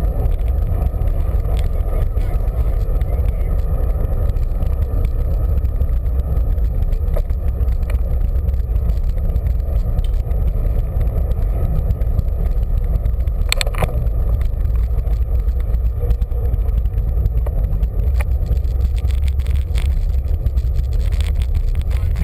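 Wind rushing over the microphone of a camera mounted on a moving bicycle: a loud, steady low rumble, with a sharp click about fourteen seconds in and a few lighter ones near the end.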